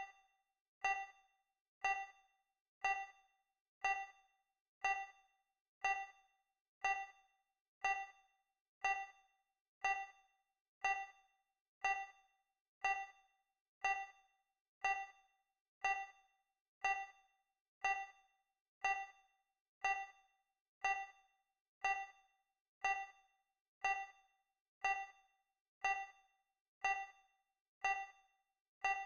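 Digital countdown timer's tick sound effect: a short, quickly fading electronic ding repeating once a second.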